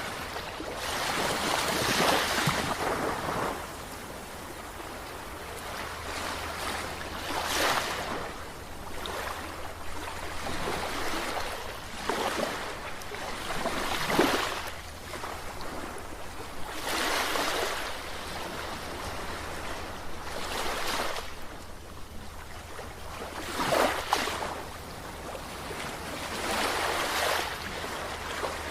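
Sea waves breaking and washing in repeated swells, each surge rising and falling over a couple of seconds and a new one every few seconds.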